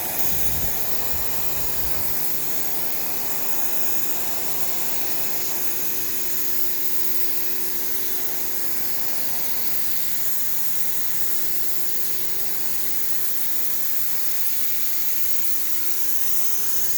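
Pressure washer wand spraying a steady, loud jet of water onto cedar deck boards through a wheeled Spray Glide attachment, an even hiss with a steady hum beneath.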